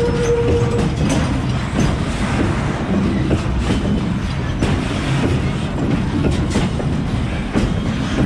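Empty open-top freight wagons rolling past, wheels clattering over the rail joints with metallic knocks and rattles. A brief steady whine stops about a second in.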